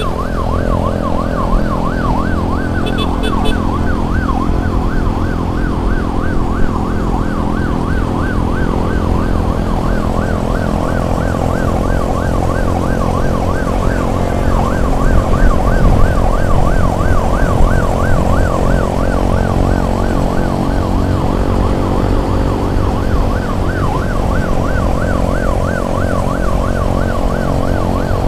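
Emergency siren yelping in a fast, even warble, over steady engine and road noise from riding in traffic. A short run of high beeps comes about three seconds in.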